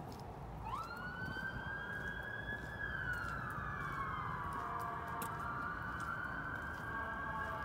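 Emergency vehicle siren wailing: one pitched tone that sweeps up quickly about a second in, holds, then slides slowly down and climbs back up near the end.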